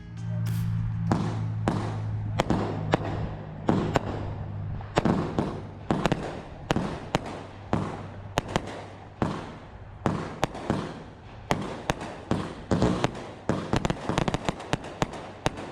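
Raccoon consumer fireworks going off: an irregular string of sharp bangs, about two to three a second, with a quicker crackling run near the end.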